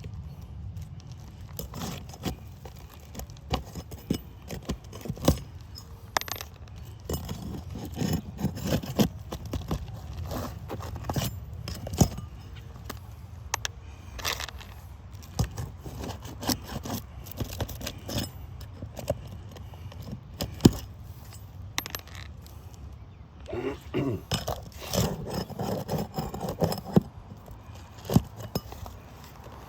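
Hand work on an asphalt shingle roof: irregular clicks, taps and scrapes of tools and shingles being handled, with a busier, louder stretch near the end.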